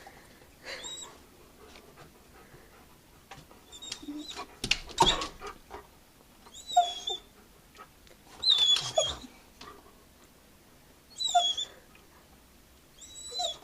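Dog whining in a string of short, high-pitched whimpers a second or more apart, the eager, frustrated whine of a dog that has seen a rabbit it wants to chase.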